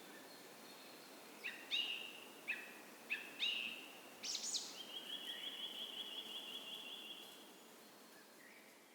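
Songbirds in a dawn woodland over the steady hiss of a gentle creek: a few sharp, downward-sweeping call notes, then a fast, even trill lasting about two and a half seconds. Everything fades down near the end.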